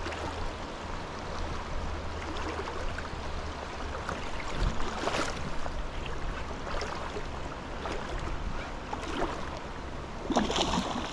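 Shallow creek water running steadily over rocks, with a couple of short sharp sounds, one about five seconds in and another near the end.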